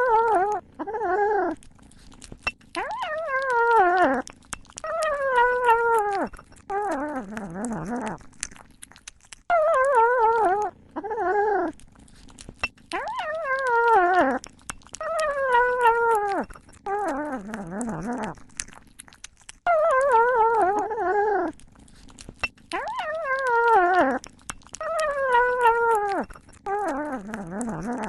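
A cat making a string of wavering, drawn-out meows, each falling in pitch, with some lower, rougher calls among them. The same sequence of calls comes round again about every ten seconds.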